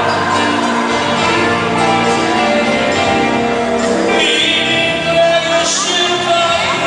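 Live band music with a singer, amplified through the PA in a large hall and heard from among the audience.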